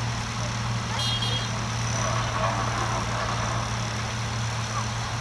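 An International tractor's engine idling steadily while hitched to a pulling sled, before the pull starts.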